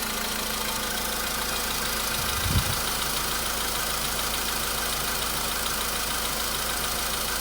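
Volkswagen Polo Sedan's 1.6 CFNA petrol engine idling steadily as it warms up after a cold start, the hydraulic lifters no longer knocking. A brief low thump about two and a half seconds in.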